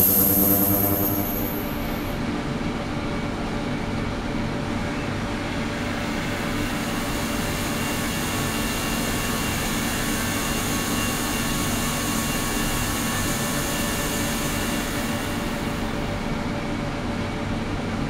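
Ultrasonic cleaning tank running, a steady hiss with faint hum tones from the agitated water. In the first second or two a louder hum with a high whine drops away, and the hiss then carries on steadily.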